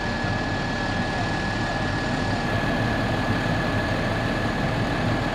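Fire engine's diesel engine idling with a steady low rumble, a thin steady whine running over it.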